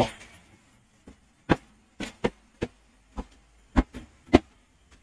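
Footsteps climbing bare concrete stairs: sharp, separate steps about two a second, unevenly spaced, some landing in quick pairs.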